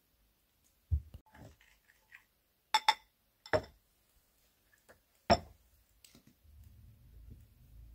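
Ceramic bowls and dishes knocking and clinking as they are handled and set down on a cloth-covered table: a couple of soft thuds about a second in, then four short, sharp clinks. A low steady noise comes in near the end.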